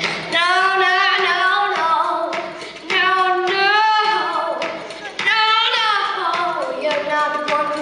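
A young female solo voice singing long held notes, several with a wavering vibrato, with short breaths between phrases.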